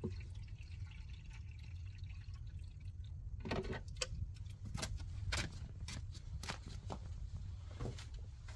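Water trickling from a plastic barrel's tap into a plastic jug. From about three and a half seconds in, it gives way to a run of scuffs and knocks from footsteps in sandals and the jug being handled.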